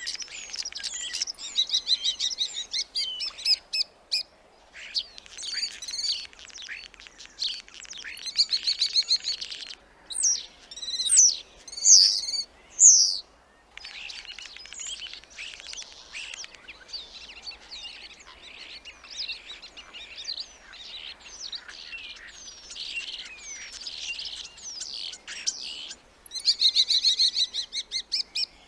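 Starling song: long runs of rapid clicks, rattles and chatter mixed with slurred whistles, broken by a few short pauses. The loudest part is a set of drawn-out, sliding whistles about a third of the way through.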